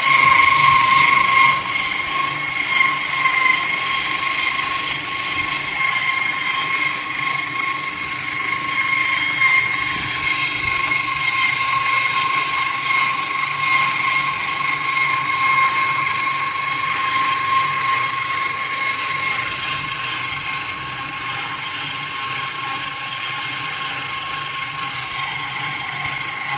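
Diamond wire saw driven by a 15 kW machine cutting through a reinforced concrete pillar: a steady high-pitched whine over a constant hiss.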